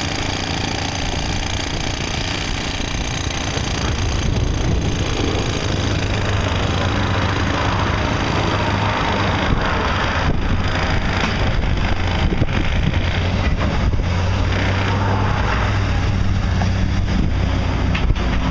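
Heavy construction equipment engine running steadily, a little louder from about four seconds in, with scattered knocks.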